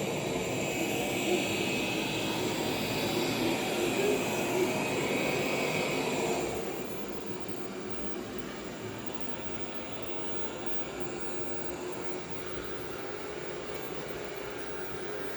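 Robot vacuum cleaner running with a steady motor hum, dropping to a quieter level about six and a half seconds in.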